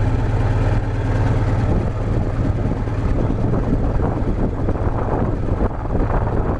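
Caterpillar D315 diesel engine running unloaded at a fast idle that will not go any lower, a steady low hum that turns rougher and noisier about two seconds in.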